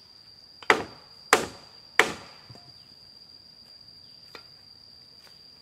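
Three hard blows of a hand tool on the wooden ladder frame, about two-thirds of a second apart, each with a short ringing tail, followed later by a faint single knock. A steady high-pitched insect drone runs underneath.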